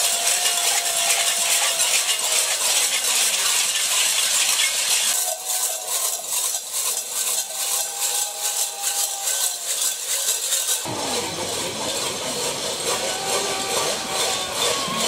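Continuous rattling and clanking from a group of straw-skirted devil maskers on the march. The sound changes abruptly about five seconds in and again about eleven seconds in.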